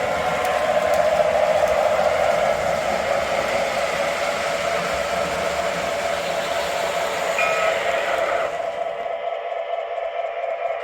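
O gauge model train running on three-rail track, a steady rushing and rumbling. About nine seconds in the running noise cuts out, leaving a steady hum.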